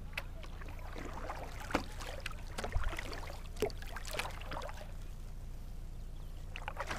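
Kayak paddle strokes: the blades dip into calm sea water, making a run of short, irregular splashes and drips through the first few seconds. A steady low rumble lies under them.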